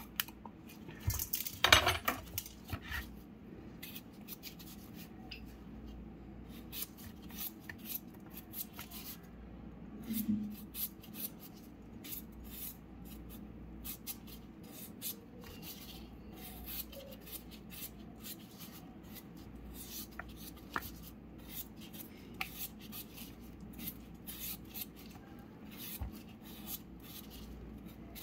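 Knife cutting and scraping as vegetables are hollowed out for stuffing, in many small clicks and scrapes. There is one louder, sharper clatter about two seconds in.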